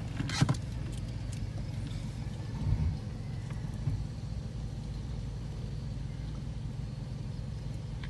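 A vehicle engine running steadily, with a sharp click about half a second in and a dull thump near three seconds.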